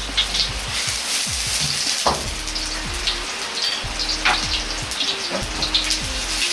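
Pork back fat sizzling and spitting in a hot carbon-steel wok over a gas wok burner. Irregular sharp pops and crackles sit over a steady frying hiss as the fat starts to render and splatter.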